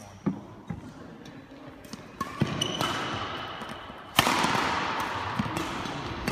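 Sharp knocks and taps of badminton rackets, shuttlecocks and footsteps on a wooden sports-hall floor, with a brief shoe squeak, echoing in the hall. The loudest is a sudden knock a little over four seconds in, after which a steady hiss continues.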